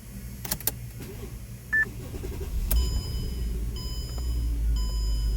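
Two clicks and a short beep, then the Mercedes-Benz CLS550's V8 engine starts with a click and keeps running. A dashboard warning chime beeps over it again and again.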